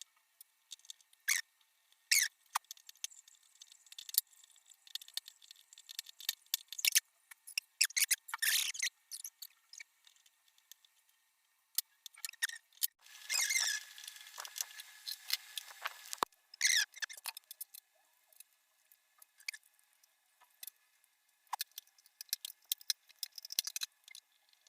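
Kettle parts being handled and fitted together: scattered light clicks and taps of plastic and metal, with a stretch of scraping about halfway through.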